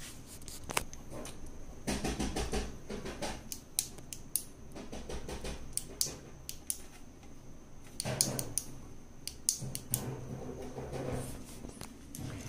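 Irregular clicks and knocks of a plastic aquarium LED light bar and its suction-cup bracket being handled against the glass tank, with rustling handling noise in two stretches.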